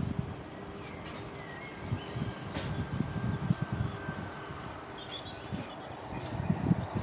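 Small birds singing and chirping, many short high calls scattered throughout, over a low, uneven rumble in the background.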